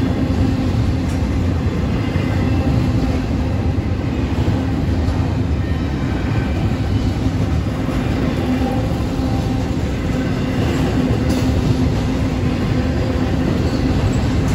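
Double-stack intermodal freight train rolling past on the rails: a steady, loud rumble of wheels and cars with a constant low hum.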